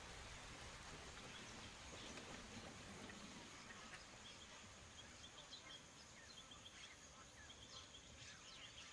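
Faint nature ambience: a soft even hiss with scattered short, high bird chirps, which grow more frequent from about four seconds in.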